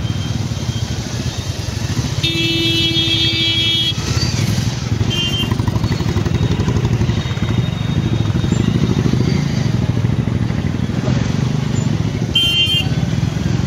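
Motorcycle engines running in slow, crowded street traffic. A vehicle horn sounds for nearly two seconds a couple of seconds in, and shorter horn toots come about five seconds in and near the end. People's chatter runs underneath.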